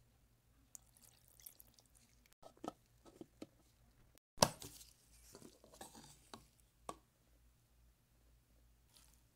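Faint, scattered knocks and clicks from a steel mixer-grinder jar and its plastic lid being handled, with the loudest knock about four and a half seconds in; no grinder motor is heard.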